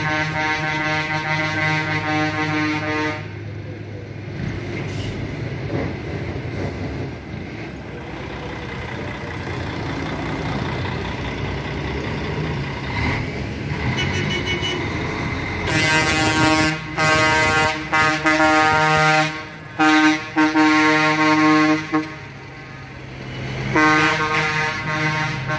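Truck horns honking as trucks drive past, with engine and road noise between. A held horn sounds for about the first three seconds, then after a stretch of engine noise comes a run of blasts with short breaks in the second half, and another blast near the end.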